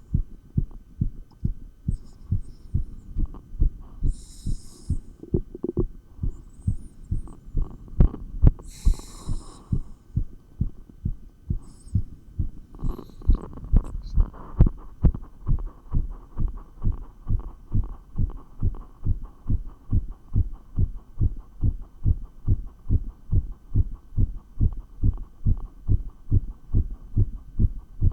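Fast human heartbeat heard through a stethoscope pressed to the chest, its rate raised by dumbbell exercise: quick, regular low thuds, with a few short hissing scrapes and knocks in the first ten seconds.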